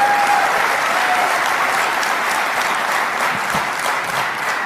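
Large audience applauding, the clapping slowly dying down toward the end.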